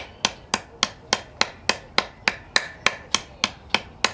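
Rapid, evenly spaced sharp knocks, about three or four a second: a Mora Companion Heavy Duty knife being batoned into wood, the strikes quickened by sped-up footage.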